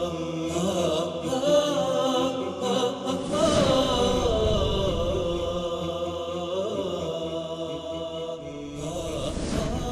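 Chanted vocal music: a sung melody carried by voice, with no speech over it.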